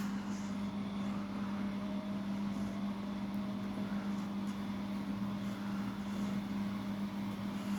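Washing machine running with a steady low hum and a faint rushing noise, unchanging throughout.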